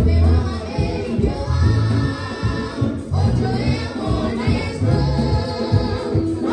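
A choir singing an upbeat gospel song with a live band, a heavy bass line pulsing underneath.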